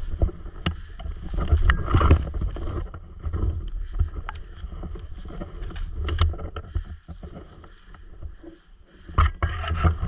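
Footsteps hurrying through dry fallen leaves, an irregular rustling and crunching with many small cracks, over a heavy low rumble of the body-worn camera being jostled. The loudest bursts come about two seconds in and again near the end.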